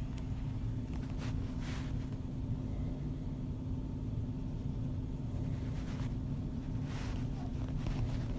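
Woman snoring through an open mouth over a steady low rumble, with two faint breathy rasps, one near two seconds in and one around six to seven seconds in.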